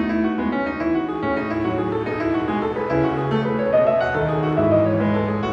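Background piano music, a steady run of held and changing notes.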